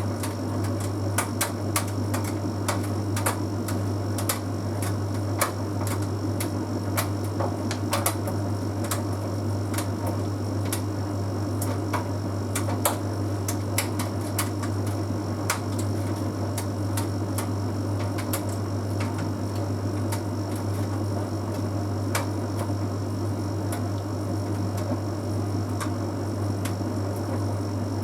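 Bosch Series 6 heat pump tumble dryer running mid-way through a drying cycle: a steady low hum from the machine with irregular light clicks and taps of the load tumbling in the drum, more frequent in the first half.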